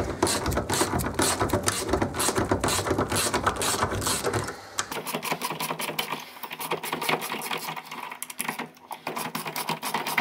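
Ratchet wrench with a 17 mm socket clicking in fast runs as it undoes the nuts that hold a motorcycle rear sprocket to its aluminium carrier.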